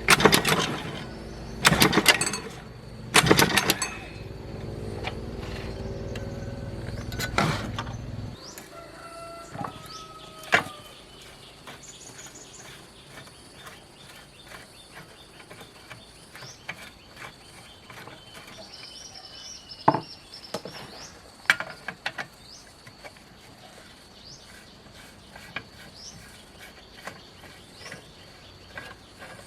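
Sharp metal clanks over a steady low mechanical hum that cuts off suddenly about eight seconds in. After that come birds chirping, a thin steady insect drone and occasional light taps of metal tools.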